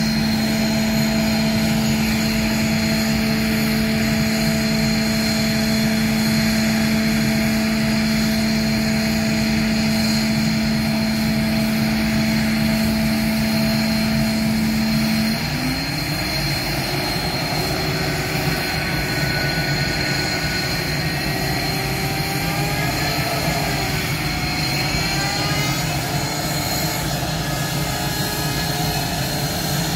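Loud, steady whine and rush of F-5 fighter jets' turbojet engines running on the ground. About halfway a steady low hum cuts off and a tone slides upward, and several rising whines follow in the second half as engine speed changes.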